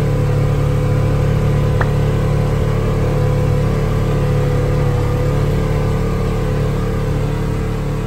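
Polaris RZR side-by-side's engine running steadily at moderate speed, easing off slightly near the end.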